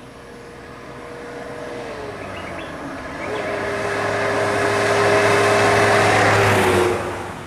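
A van drives past close by: its engine hum and tyre noise build up steadily to a peak and then fall away quickly near the end.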